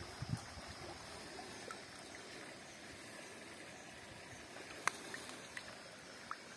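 Steady, faint wash of flowing stream water, with a few light clicks, the sharpest about five seconds in.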